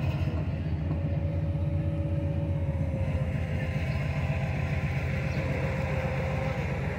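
Mobile crane's diesel engine running steadily, a low pulsing rumble, as it lowers a wooden fishing boat on its hook. A faint steady whine rides over it from about three seconds in until near the end.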